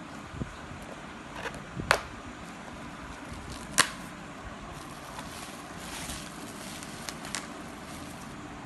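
Handling noise from a parcel being unboxed: a few short sharp clicks and rustles, the loudest about two and about four seconds in, over a steady background hiss.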